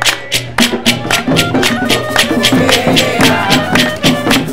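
Colombian bullerengue folk music: sharp percussion strokes keep a steady beat of about four a second while a clarinet plays a melody of short held notes.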